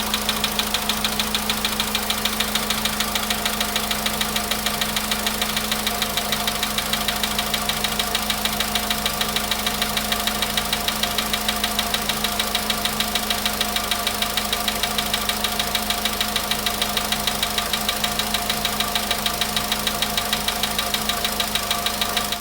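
Volkswagen Polo Sedan petrol engine idling with a steady, rapid knock hammering in time with the engine. The knock is heard at idle on an engine near 100,000 km.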